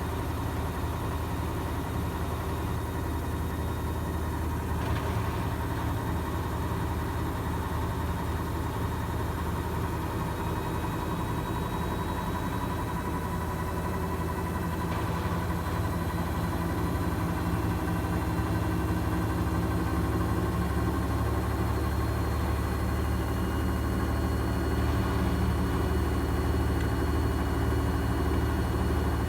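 Gorenje washing machine in its final spin: a steady motor hum and drum whir with several high tones that slowly climb in pitch, growing a little louder in the second half as the drum speeds up.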